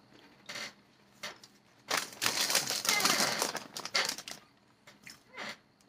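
Foil bag of Doritos crinkling in a dense run of crackles lasting about two and a half seconds, with a few short rustles before and after.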